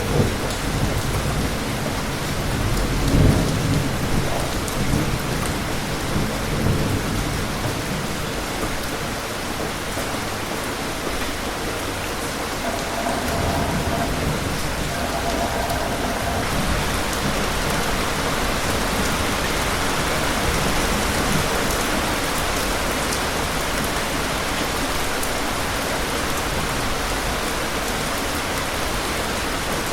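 Steady rain falling, with low rumbles of distant thunder through the first several seconds, the strongest about three seconds in.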